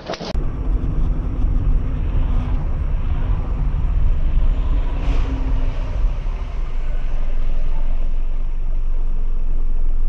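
Steady low rumble of a car's engine and its tyres on the road, heard inside the moving car's cabin. It cuts in abruptly just after the start.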